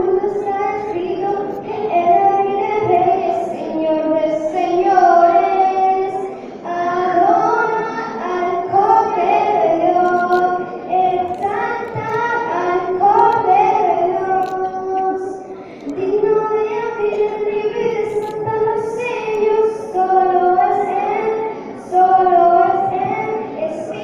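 A young girl singing a melody into a handheld microphone.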